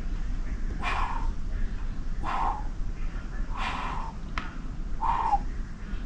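A dog barking repeatedly: four short barks, about a second and a half apart.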